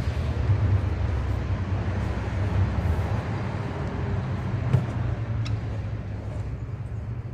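Steady low mechanical rumble, like a vehicle engine running nearby, with one sharp knock near the middle and a couple of faint ticks after it.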